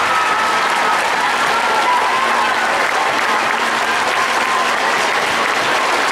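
A large crowd applauding steadily, with a few voices calling out over the clapping.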